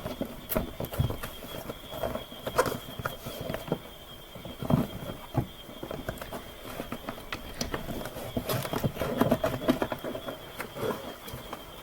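Irregular clicks, taps and rustling as a USB microphone kit and its packaging are opened and handled, over a faint steady high-pitched whine.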